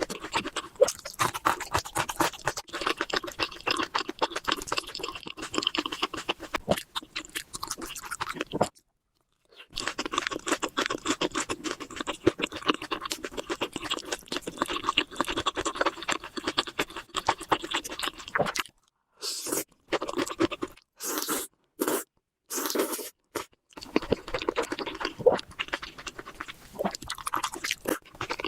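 Close-miked eating: steady chewing and crunching made of dense small mouth clicks. It stops dead for about a second near nine seconds in, and again around twenty seconds, where a few short bursts of chewing start and cut off abruptly.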